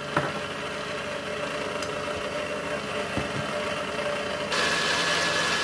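Electric stand mixer running steadily, its flat beater churning a thin yeast-and-water liquid in a stainless steel bowl. About four and a half seconds in the motor gets suddenly louder and adds a steady high whine.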